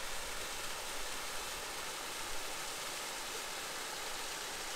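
A stream rushing down a small rocky waterfall into a pool, a steady hiss of falling water.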